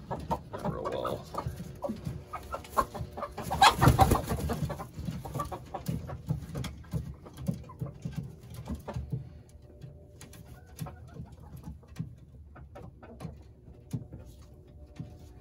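Roosting chickens making low clucks and coos while a hen is handled, with feathers rustling and short scratchy clicks throughout; a louder flurry of rustling comes about four seconds in.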